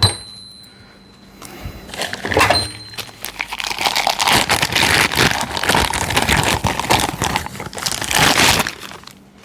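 Crinkling of the wrapping being pulled off a large 1-inch-drive impact socket, a dense run of crackles starting about a second and a half in and stopping near the end.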